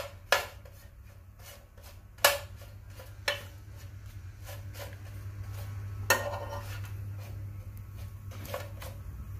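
Metal spoon clinking and scraping against a nonstick frying pan as sweet potato wedges are turned over, with a handful of sharp clinks spaced a second or more apart. A low steady hum lies underneath.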